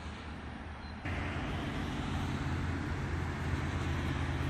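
Steady low outdoor rumble like road traffic, stepping up louder about a second in.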